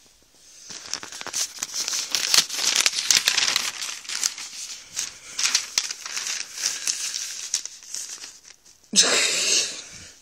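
Newspaper pages rustling and crinkling as they are handled and turned, in an irregular run of crackles, with a louder rush of sound about nine seconds in.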